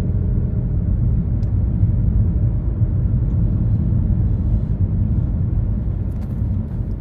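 A vehicle's steady low rumble.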